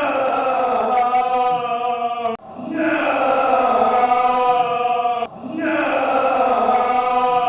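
Choral music: voices singing sustained, chant-like held chords in three phrases of about two and a half seconds each, with short breaks between.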